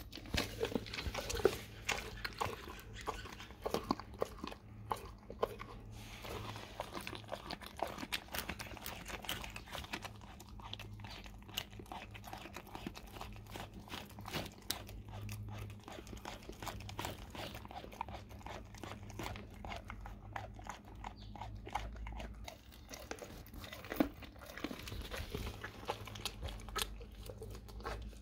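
Dog chewing and gnawing on a raw cow tongue, a steady run of irregular short clicks and bites.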